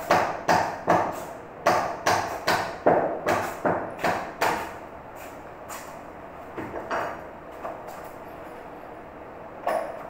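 Hammer striking a chisel, cutting the recess for a lock into a wooden door: quick, even strikes about two to three a second that stop about four and a half seconds in, followed by a few scattered lighter knocks.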